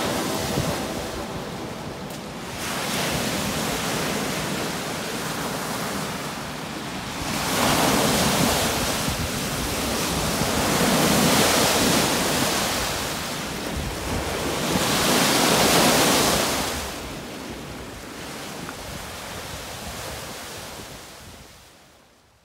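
Lake waves breaking and washing onto a sandy shore, rising and falling in several swells, then fading out near the end.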